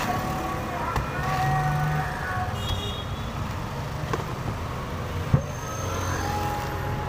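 Street traffic running steadily, with a few held vehicle tones. A sharp knock about five seconds in comes from the machete and coconut work on the wooden block.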